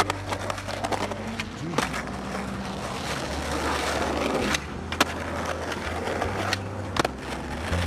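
Skateboard wheels rolling on hard ground, with sharp clacks of the board (pops and landings) about two seconds in, again around five seconds and near seven seconds.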